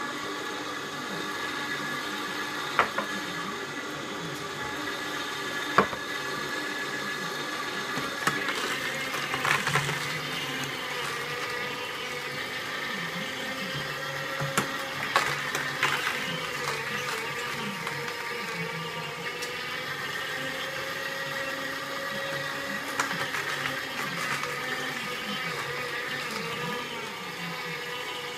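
Two slow masticating juicers, a Sharp EJ-CP10B and a Hurom HU-300W, running together as a steady motor hum, with a few sharp cracks as carrot pieces are crushed by the augers.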